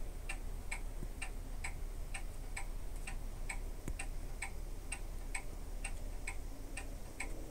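Steady, evenly paced ticking, about two ticks a second, like a mechanical clock.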